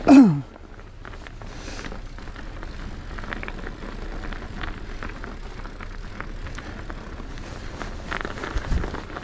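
Norco Optic mountain bike riding a snowy trail on Schwalbe Ice Spiker studded tyres: steady rolling and drivetrain noise with scattered rattles and clicks. A brief loud sound falling in pitch comes right at the start, and a low thump near the end.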